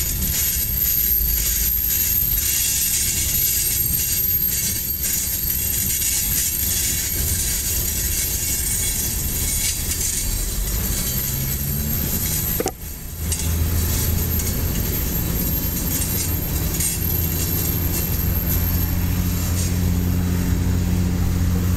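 Freight train of covered hopper cars rolling steadily past on the rails. After a break about two-thirds of the way in, a steady low hum joins the rolling noise.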